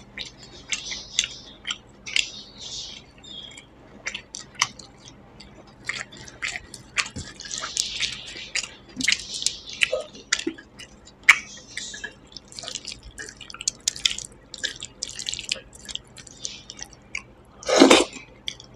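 Fingers mixing and squishing rice with dal and vegetables, a run of short wet, sticky clicks and squelches, with chewing and mouth sounds. A louder mouth sound comes near the end as a handful goes into the mouth.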